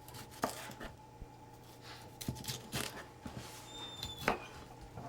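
Scattered light knocks and clicks, over a steady low electrical hum, with a faint high squeak about four seconds in.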